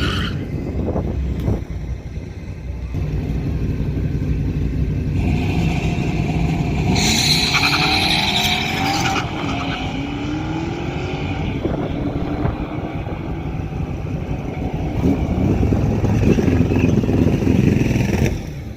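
Cars on a drag strip accelerating hard, their engines revving up in pitch through the gears, with a harsh hissing stretch partway through. The engine noise swells again late on and drops away just before the end.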